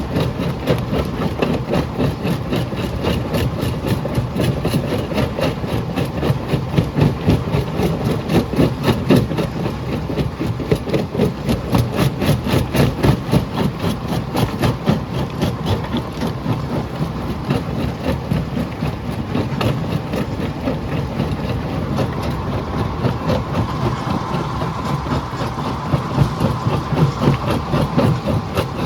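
Jaw crusher running: a steady, heavy mechanical rumble with a fast, even beat from the machine's working motion. A faint higher hum comes up near the end.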